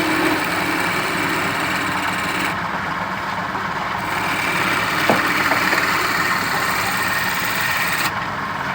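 A power tool's motor running steadily, with a constant mechanical hum and whir.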